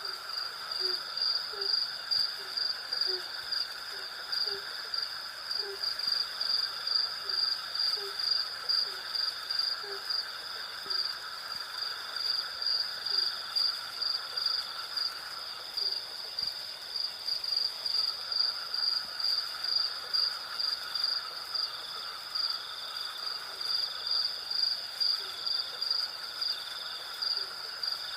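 Night chorus of crickets: a steady, high, evenly pulsing trill over a lower insect drone, which drops out for about two seconds past the middle. Short, low, hoot-like calls repeat about once a second through the first half, then come only now and then.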